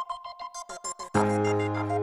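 Upbeat electronic intro music: quick short repeated notes, then about halfway through a deep bass and held chords come in and the music gets louder.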